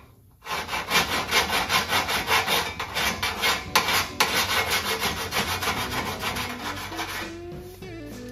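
Hand file rasping over the TIG-welded inside corner of a steel Model A cowl panel, dressing off the weld in rapid, even strokes, several a second. The filing stops about seven seconds in and music comes in near the end.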